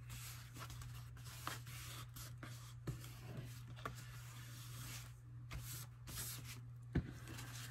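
Fingers pressing and rubbing a paper piece flat onto cardboard: soft, scattered rustles and light scrapes of skin on paper, with a sharper tap about seven seconds in. A steady low hum runs underneath.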